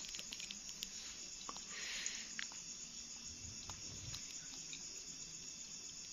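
Steady high chirring of crickets, with a few small clicks and a brief rustle mixed in.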